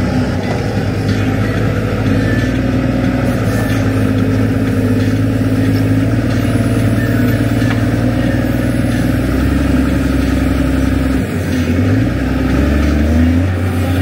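New Holland Long Reach wheel loader's diesel engine running hard close up while it lifts and dumps a bucket of straw-pack manure. The engine note dips about eleven seconds in and picks up again.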